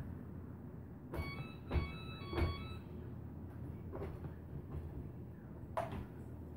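Household objects being handled: three sharp knocks, each with a short ringing clink, about a second in, then two fainter knocks later. A low steady hum underneath.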